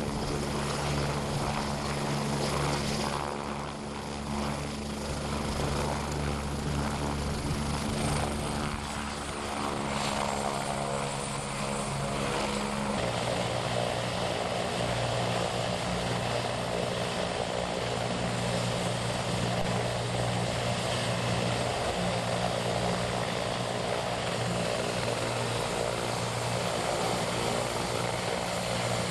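Medical helicopter running, a steady drone of turbine whine and rotor. Its pitch changes abruptly about 13 seconds in.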